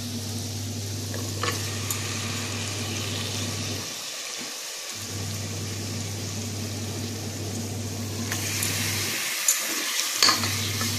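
Masala and oil sizzling in an aluminium pressure cooker as raw mutton pieces are added, the sizzle growing louder about eight seconds in, with a few light knocks along the way. A steady low hum runs underneath and drops out twice.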